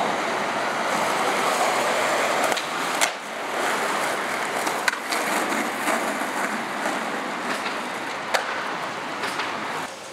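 Skateboard wheels rolling on street pavement, a steady rushing noise, with a few sharp clacks of the board about three, five and eight seconds in.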